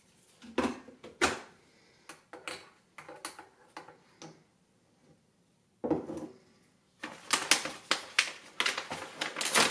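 Kitchen handling: a few separate knocks and clinks of crockery, then from about seven seconds in a dense crackling as a paper-and-foil muesli pouch is pulled open.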